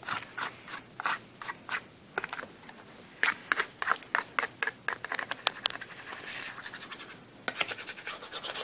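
A small metal tool scratching and tearing at the paper seal and fluted paper liner of a freshly opened tobacco tin, in quick irregular scrapes.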